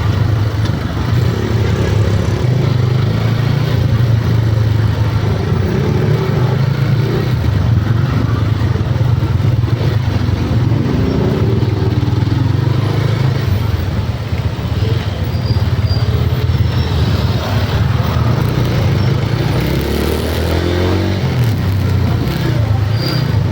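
A motor vehicle's engine running steadily: a loud, continuous low drone.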